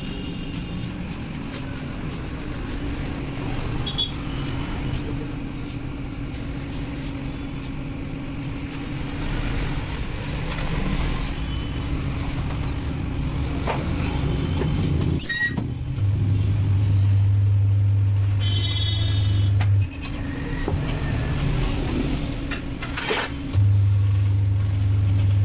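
Tyre changer machine fitting a new tyre onto a scooter wheel rim. Its motor runs with a loud, steady low drone in two stretches of a few seconds each, over a steady background hum, with a sharp knock just before the first stretch.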